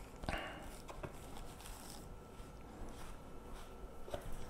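Faint handling sounds from a soft leather glasses pouch with a magnetic flap being opened: light rustles, a brief scrape about a quarter second in, and a few small clicks.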